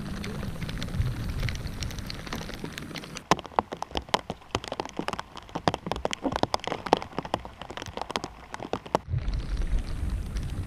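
Rain tapping on a plastic bag wrapped over the camera: a dense run of sharp, uneven taps through the middle, with a steady rush of wind and water before and after.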